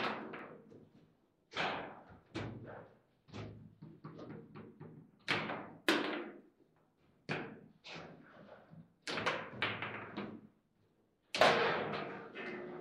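Foosball table in play: the hard ball is struck by the rod-mounted players and knocks off the table's walls, a series of sharp clacks and thuds at irregular intervals. The loudest knock comes near the end.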